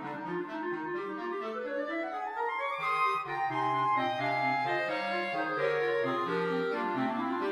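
Clarinet quartet playing a fast, busy passage: quick runs climb upward over held low notes, one starting about half a second in and another near the end.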